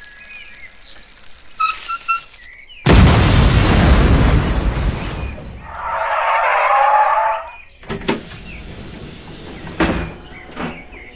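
Cartoon sound effects of a DeLorean time machine arriving: a loud rushing burst of noise about three seconds in, then tyres squealing for about two seconds as the car pulls up, then a hiss with sharp clicks near the end.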